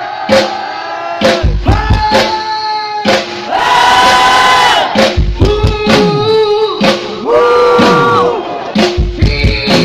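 Live rock band playing loudly, with a singer holding long notes over drums and guitars while the crowd shouts and sings along.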